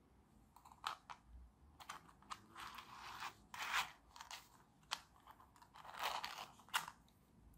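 Thin 3D-printed plastic puzzle pieces being handled and slotted together: faint, irregular clicks and short scratchy scrapes of plastic on plastic.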